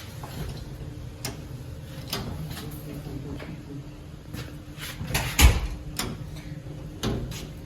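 Scattered metal clicks and knocks of an electrical breaker panel being unlatched and handled, with one heavy clunk about five and a half seconds in, over a steady low hum.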